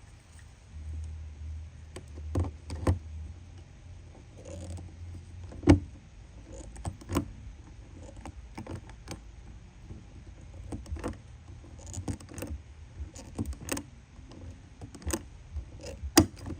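Irregular metallic clicks and clinks of a hand pop-rivet tool and small rivets being worked into a marker-light housing, with a few sharper snaps.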